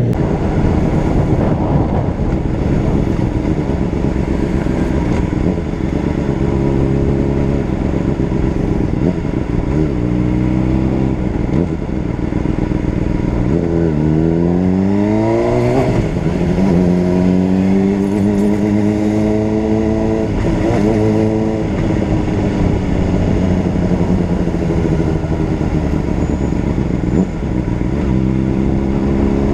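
Honda CBR600RR's inline-four engine being ridden on the street, its pitch rising and falling with throttle and gear changes. About halfway through the revs climb steeply, then drop back and settle.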